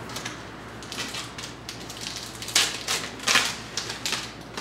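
2013 Topps Gypsy Queen baseball cards being handled and shuffled in the hands: a run of short, irregular, dry flicks and rustles of card stock, the loudest a little past halfway.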